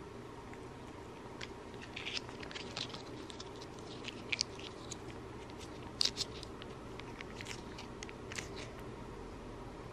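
A cat licking a lickable paste treat and smacking its lips: scattered soft, wet clicks and smacks, the loudest about four and six seconds in.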